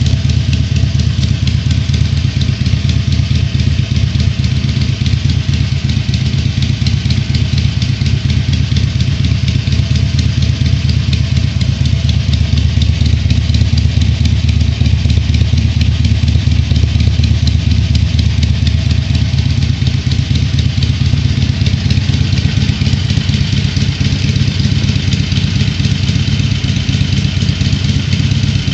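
Harley-Davidson Iron 883's air-cooled V-twin idling steadily on its stock exhaust, with a heavy sound at low idle revs. The engine has about 1400 km on it and has not yet had its first service.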